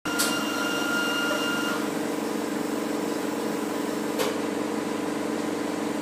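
Steady machine hum, like a running appliance. A light clink near the start rings on as a thin tone for about a second and a half, and a single click comes about four seconds in.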